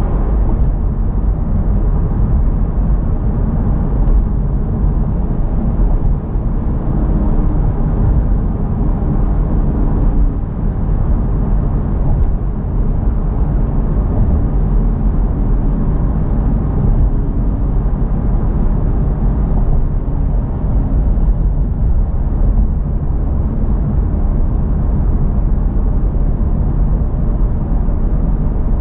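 Honda Civic Type R (FL5) driving, a steady low rumble of road and engine noise that holds at an even level.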